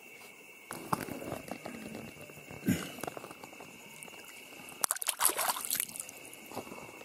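A hand splashing and sloshing in shallow creek water while grabbing a crayfish, in irregular bursts, loudest about five seconds in.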